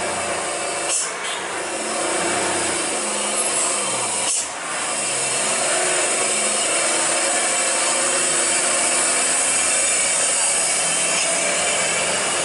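Loaded Hino cargo truck's diesel engine running loud and rough as the truck drives past close by, with a brief dip in the sound about four seconds in.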